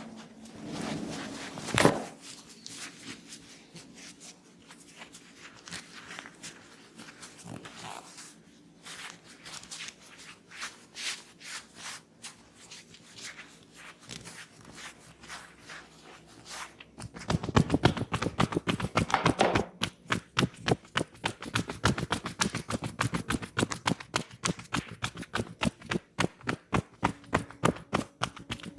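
Hands massaging a man's head and neck: scattered rubbing and light taps with one sharp click about two seconds in. A little past halfway a fast, even run of pats or slaps begins, several a second, and keeps going.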